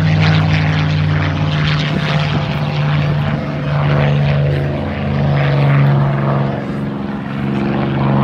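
Aircraft engine drone, a loud, steady low hum with a ladder of overtones whose pitch shifts slightly a few times.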